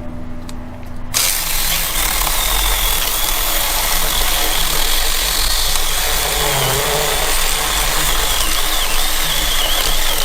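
Small battery-powered Goyqgle mini chainsaw starting about a second in and cutting through a thick log, its motor a steady high whine that wavers as the chain works through the wood. Before the saw starts, a tractor engine can be heard idling.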